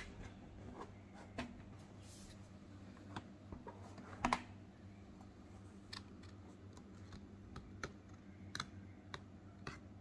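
Metal pencil tin and its card insert being handled and opened: scattered light clicks and taps at irregular intervals, the loudest about four seconds in, over a low steady hum.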